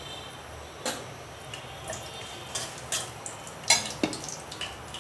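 A long metal spatula knocking and scraping against an aluminium karahi as whole spices are stirred in hot oil, in a handful of irregular clicks, the loudest near the end. The oil sizzles and froths under the stirring.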